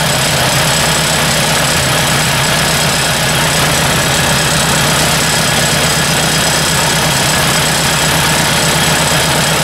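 Ford 800 tractor's four-cylinder engine idling steadily with its valve cover off, the valve train exposed. The hammering the owner was chasing is not plain: he says he doesn't really hear that noise now.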